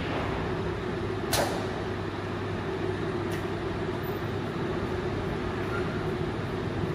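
Melt blown filter cartridge end cap welding machine running with a steady mechanical hum over factory noise. A short sharp hiss comes about a second and a half in, and a fainter one near the halfway point.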